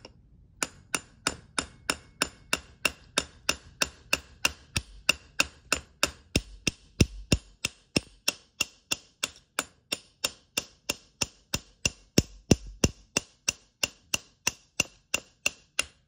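Hammer tapping a steel roll pin punch, about three light strikes a second with a short metallic ring, driving the roll pin that holds a Geissele Maritime bolt catch into an AR-15 lower receiver.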